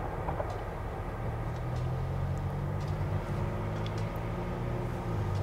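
Diesel locomotive engine running with a steady low drone that grows a little louder about a second in. A few faint sharp ticks sound over it.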